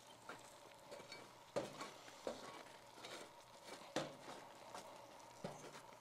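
Metal spade scraping hot charcoal and ash across aluminium foil at the base of a metal trash can. It comes as about five separate scrapes and knocks, faint, with a light crackle between them.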